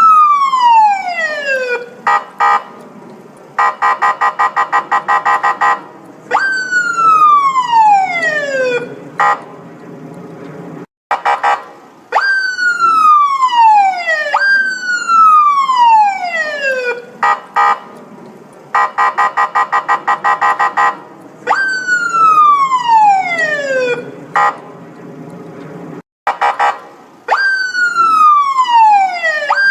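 Electronic police siren sounding a series of falling wails, each sweeping down in pitch over about two and a half seconds. Between them come stretches of a fast pulsing tone and short chirps, and the whole cycle repeats about every fifteen seconds.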